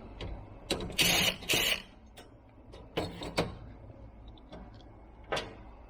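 Electric screwdriver buzzing in two short spells, the first about a second long, the next briefly, as it backs out rack-mount screws, with a few sharp metal clicks near the end.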